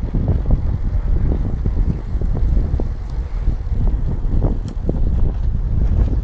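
Wind buffeting a phone's microphone while riding a bicycle, a heavy low rumble that keeps fluttering, with a few short knocks scattered through it.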